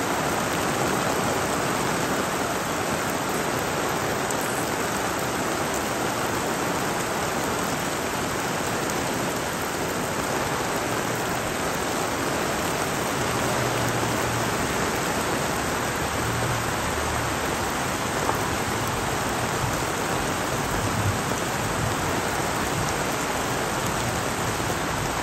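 Heavy rain falling steadily, an even hiss of rain on grass, gravel and roofs.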